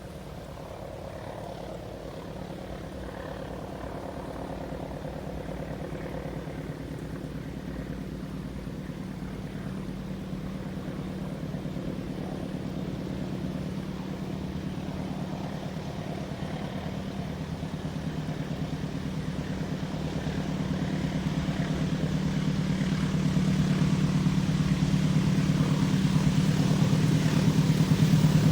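Diesel-electric locomotive engine running with a steady low hum, growing steadily louder as the train approaches.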